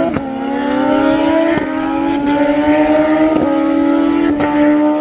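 Sport motorcycles accelerating hard at full throttle, the engine note climbing and then dropping back with each of about four quick upshifts.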